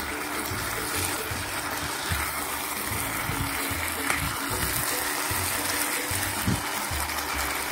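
Chicken sizzling in a frying pan as it is stirred with a silicone spatula, a steady frying hiss.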